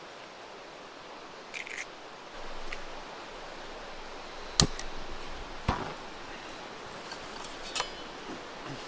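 A few sharp clicks and knocks of small hard objects being handled, the loudest about four and a half seconds in, over the steady rush of a nearby river.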